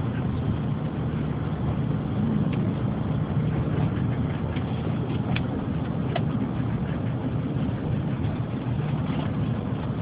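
Steady low rumble of a car's engine and road noise heard inside the cabin while driving, with a few faint clicks.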